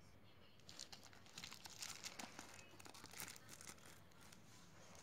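Faint crinkling and tearing handling noise: a quick run of small, sharp crackles lasting about three seconds.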